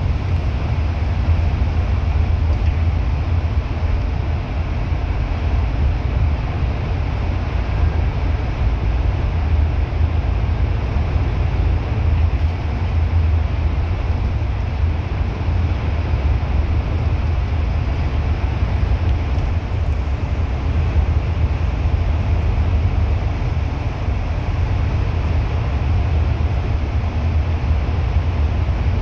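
A moving bus's engine and road noise heard from on board: a steady low drone with an even rumble and hiss, unbroken throughout.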